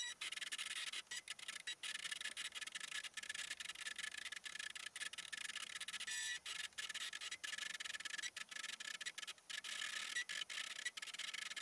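Cricut Expression cutting machine cutting cardstock: its motors whir as the blade carriage and mat move back and forth, the sound stopping and starting many times in quick succession.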